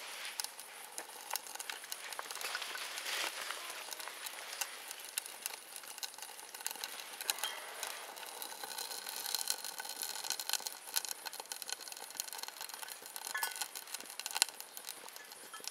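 Small wood-gas camp stove burning, the fire crackling with many small sharp snaps over a steady hiss.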